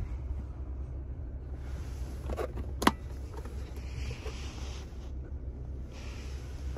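Nissan Skyline Coupe's 3.7-litre V6 idling steadily, heard from inside the cabin as a low hum. A sharp click comes about three seconds in and another at the very end.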